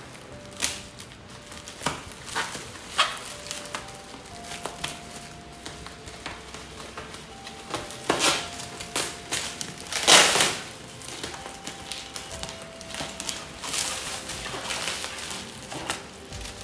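Bubble-wrap and plastic packaging crinkling and being snipped with scissors: an uneven string of short crackles and cuts, the loudest about ten seconds in.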